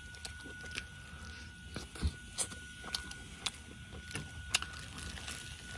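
Close-miked chewing of a mouthful of steak and potato cheese pizza: irregular wet mouth clicks and smacks, about a dozen sharp ones spread through the chewing.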